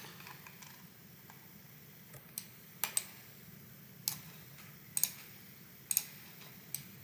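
Computer mouse clicking: about half a dozen short, sharp clicks at irregular intervals of roughly a second, some of them doubled, over a faint low room hum.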